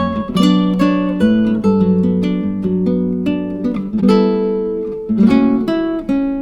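Background music: acoustic guitar playing plucked chords at a moderate, even pace.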